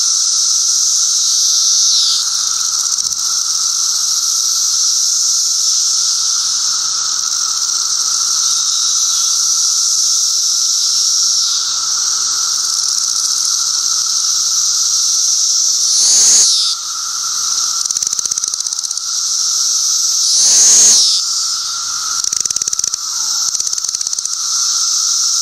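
Chorus of Brood XIII 17-year periodical cicadas: a continuous, loud, high-pitched drone of many males singing at once. Twice, about two-thirds of the way through and again a few seconds later, the sound swells louder for about a second.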